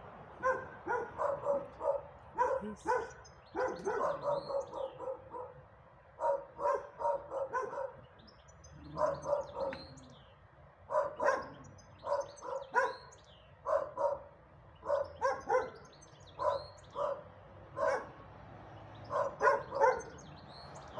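A dog barking repeatedly in short runs of quick barks, pausing for a second or two between runs.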